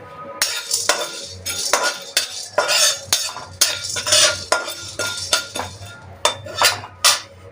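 A spatula scraping and stirring whole spices around a hot kadhai as they dry-roast, in repeated irregular strokes that start about half a second in.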